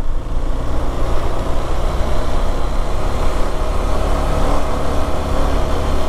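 KTM 390 Adventure's single-cylinder engine running steadily under light throttle as the motorcycle gathers speed slowly up a rough road, with a steady rush of wind and road noise.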